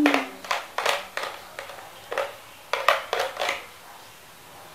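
Plastic toy fruit and toy kitchen pieces clacking and knocking against each other and the table, a string of about eight short clatters that thin out near the end.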